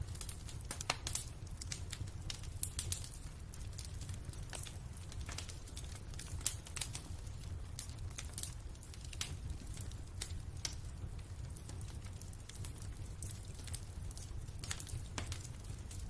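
Fireplace wood fire crackling: irregular sharp pops and snaps over a steady low rumble.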